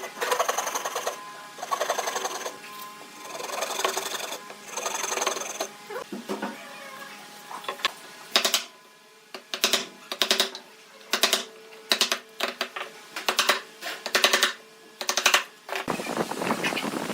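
Hand work on wood: a series of rasping strokes about a second apart, then a run of sharp knocks and short scrapes. Near the end the sound switches abruptly to a steady hiss.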